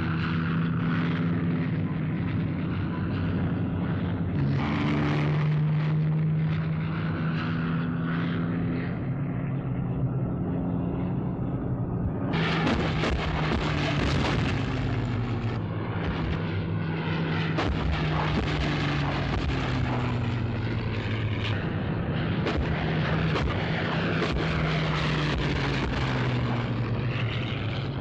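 Piston aircraft engines of diving Hawker Hurricane fighter-bombers, a steady drone whose pitch slowly rises and falls as the aircraft swoop. About halfway through the sound turns rougher and noisier, with many sharp cracks mixed in.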